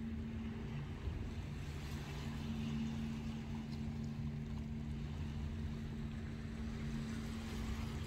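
Steady low drone of a distant boat engine, holding one pitch throughout, over small waves washing on a pebble shore.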